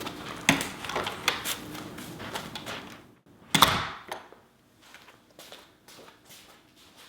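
Short clicks and knocks of objects being handled, with one louder knock about three and a half seconds in and a faint steady hum under the first half.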